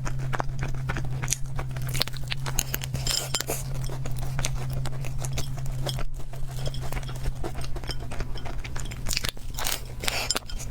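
Close-miked mouth sounds of a person biting and chewing cheese mammoth bread, a dense run of small wet clicks and crunches, over a steady low hum.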